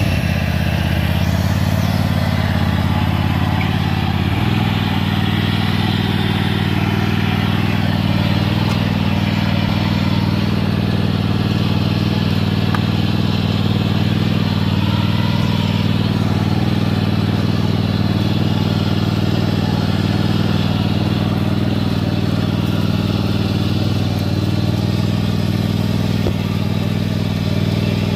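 Riding lawn mower's engine running steadily under load as it drags a weighted disc harrow through the dirt, its note shifting slightly about four seconds in.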